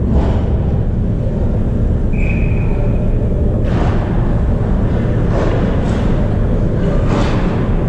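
Ice hockey game sound: a steady low rumble through the rink, broken by several short scraping hisses of skates on the ice, with a brief high, steady tone about two seconds in.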